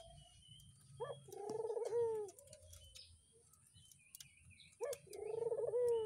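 Barbary doves cooing twice. Each call is a short opening note and then a long, rolling coo that drops at the end, with faint chirps of small birds behind.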